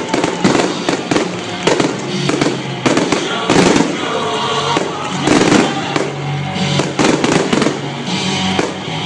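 Fireworks display: shells bursting in quick, irregular succession, several loud bangs a second, with music playing under them.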